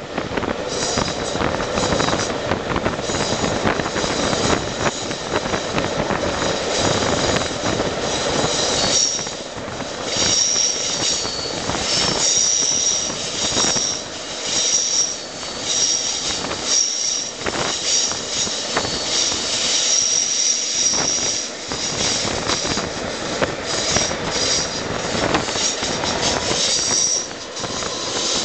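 Train of coaches behind steam locomotive 61994 rolling round a tight curve, the wheel flanges squealing in high-pitched squeals that come and go, strongest through the latter two-thirds, over the steady rumble and clatter of the wheels on the rails.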